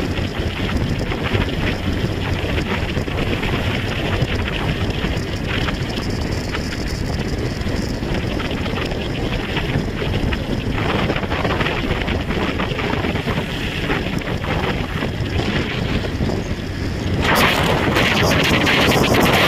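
Wind buffeting the microphone on a moving motorcycle, with road and engine noise underneath. About seventeen seconds in the wind rush suddenly gets louder and more hissy.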